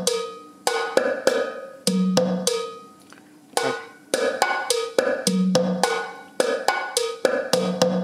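Roland Octapad SPD-30 built-in cha-cha-chá percussion loop playing: sharp hits in an even dance rhythm with a held low note every couple of seconds. It breaks off about three seconds in, and a second cha-cha loop starts up.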